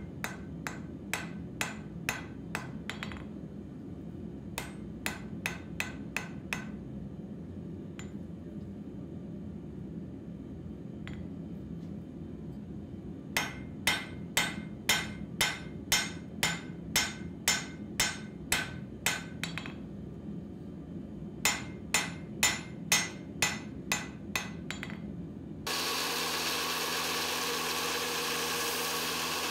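Hand hammer striking a red-hot pattern-welded steel knife blade on an anvil, in four bursts of quick blows about two a second, over a steady low hum. About 26 seconds in it gives way to a belt grinder running steadily as the blade's profile is ground.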